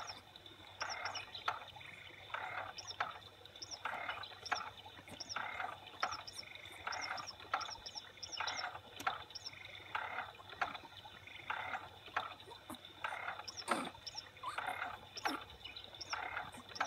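Frogs croaking, a short rasping croak about once a second, with pairs of short high chirps in between.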